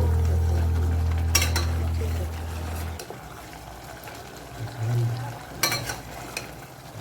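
A utensil stirring mutton curry in a pan, with frying and sizzling and two sharp clinks of metal on the pan. Low background music runs under it and stops about three seconds in.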